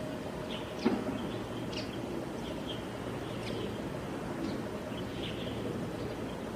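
Steady ambient background with a low hum, with short high chirps of small birds every second or so and one sharp click just under a second in.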